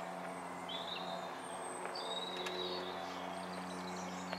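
Small birds chirping, with a few high, thin calls about a second in and again around two seconds in, over a steady low hum.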